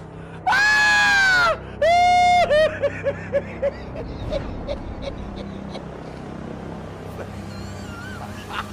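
A woman screaming loudly in fright, twice in quick succession. The second scream breaks into a run of short cries that fade out within a couple of seconds, over a low street background.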